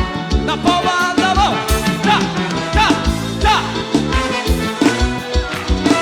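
Upbeat instrumental band music with a steady drum beat, bass and melody lines that slide up and down in pitch.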